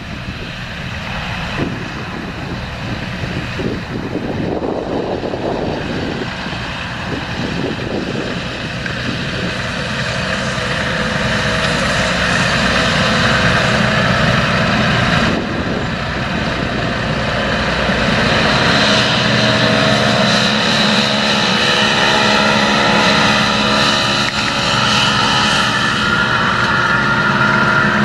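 John Deere 7230R tractor's six-cylinder diesel engine running under load while pulling a seed drill. It grows steadily louder over the first eighteen seconds or so as the tractor approaches, then holds level as it passes.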